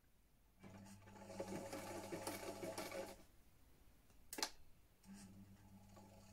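Vintage electric sewing machine stitching a seam: the motor hums and the needle mechanism clatters for about two and a half seconds, stops, then starts again about five seconds in. A single sharp click comes during the pause.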